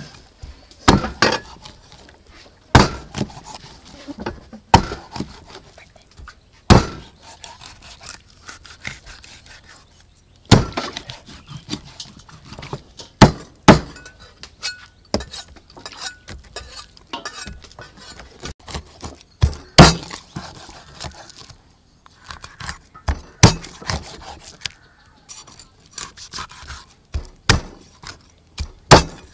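Large knife chopping a whole fish into thick steaks on a round wooden chopping block: repeated sharp knocks as the blade cuts through the body and strikes the wood, irregularly spaced, a few strokes close together and then short pauses.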